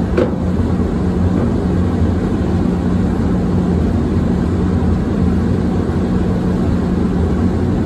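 Steady low hum of a paint spray booth's ventilation fans, with one brief click just after the start.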